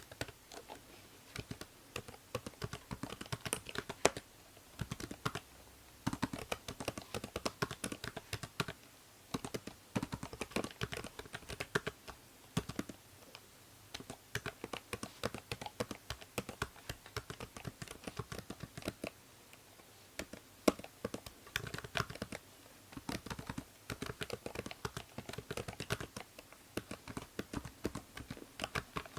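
Computer keyboard typing in quick runs of key clicks broken by short pauses, a few keystrokes sharply louder, over a faint steady hiss from the binaural microphone.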